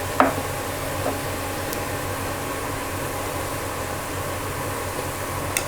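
Steady hiss and faint hum in the kitchen as the masala base cooks in the pan, with a couple of faint ticks near the start.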